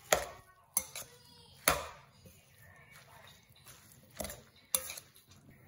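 Metal spoon knocking and clinking against a stainless-steel bowl while stirring grated beetroot, carrot and apple, a handful of irregular strikes.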